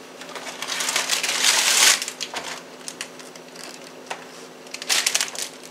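Rustling and crinkling of packaging being handled: the cardboard box and plastic wrapper of a rolled refrigerated pie crust. The rustling is loudest from about half a second to two seconds in, with a shorter burst near the end.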